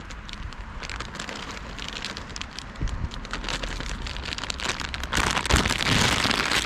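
Rain falling, with many separate drop hits; it grows louder about five seconds in.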